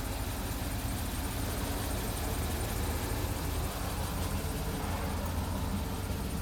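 The 2013 Cadillac Escalade's 6.2-litre V8 idling, a steady low rumble.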